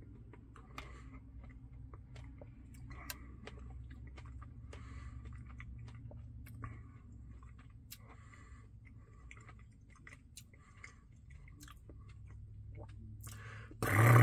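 Close-miked chewing of a Dairy Queen Blizzard, with many small wet mouth clicks and smacks over a low steady hum. A loud voice cuts in right at the end.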